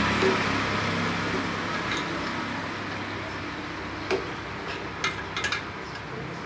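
Light metal clicks and knocks as an add-on reverse gearbox housing is handled and lined up against a motorcycle's engine case and frame. A few sharp taps come in the second half, over a steady low hum that fades during the first few seconds.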